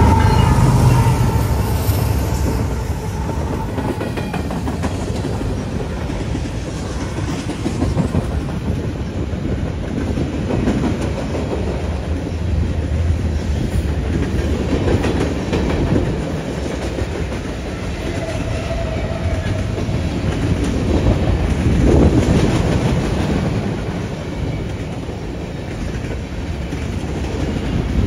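Freight train passing close by: the diesel locomotives' horn fades out just after the start over the heavy rumble of their engines. Then loaded hoppers and tank cars roll past with a steady roar of steel wheels on rail and a clickety-clack of wheels over the rail joints.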